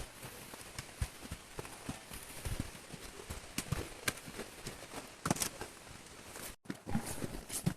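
Footsteps on a woodland trail: irregular knocks and crunches from walking, over a low outdoor background.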